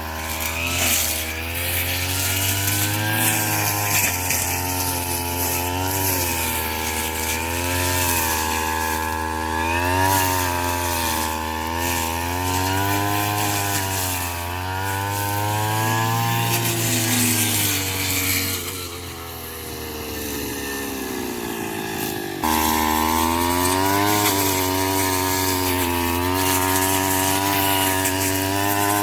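Small engine of a straw-cutting machine running hard, its pitch swinging up and down every couple of seconds as it cuts into rice straw. About two-thirds of the way through it drops lower and quieter, then jumps back up abruptly.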